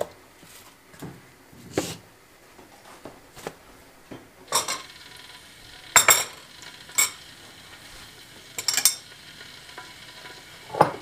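Kitchen handling: several sharp clinks and knocks, a second or two apart, of a metal spoon against a ceramic bowl and the bowl being set down on a stone countertop, with soft rustling of plastic wrap near the start.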